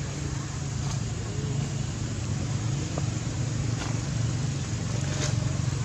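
Steady low rumble with a hiss, unbroken outdoor background noise, with a few faint clicks.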